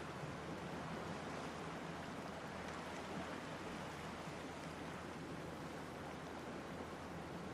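Ocean surf washing steadily, an even rushing hiss with no single wave crash standing out.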